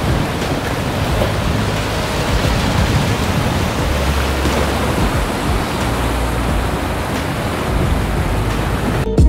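Sea surf washing over and breaking around a rocky shoreline: a dense, steady hiss with a low rumble that comes and goes. Acoustic guitar music cuts in at the very end.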